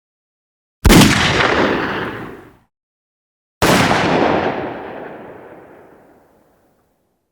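Two separate gunshot sound effects: one single shot about a second in that fades out within two seconds, then another single shot about three and a half seconds in with a longer fading tail of nearly three seconds.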